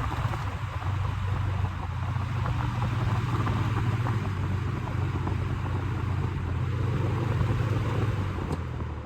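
Vintage Air King PL20E box fan running steadily: the GE motor hums low and the metal blades push a rush of air. Near the end there is a click and the fan begins to wind down.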